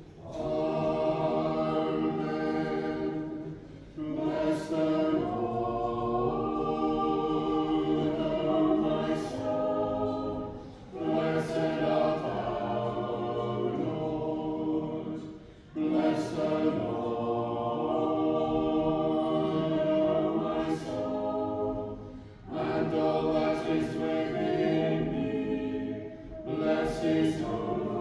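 A small choir singing Orthodox liturgical chant a cappella, in long held phrases with short pauses for breath between them.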